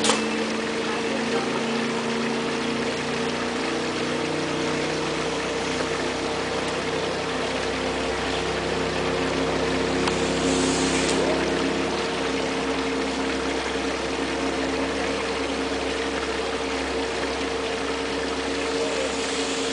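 Steady drone of a running motor with several held tones, unchanging throughout. One sharp snap comes right at the start, and a brief hiss about ten seconds in.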